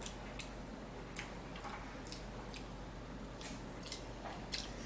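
Close-up eating sounds of a person taking a mouthful of Indian rice pudding: faint, scattered wet mouth clicks and soft chewing.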